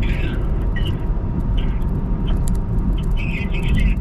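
Steady road and engine rumble heard from inside a car's cabin at highway speed, with several brief high-pitched squeaks scattered through it.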